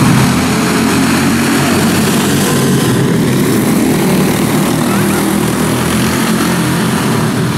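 A pack of quarter midget race cars with single-cylinder Briggs & Stratton Animal engines racing on a dirt oval. Their overlapping engines make one loud, steady drone.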